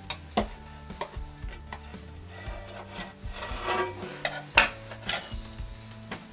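Metal scraping and rubbing as a pizza cutter works around the edge of a metal tart pan to free a baked focaccia, with several sharp clicks and knocks of metal on wood, the loudest about four and a half seconds in. Soft background music underneath.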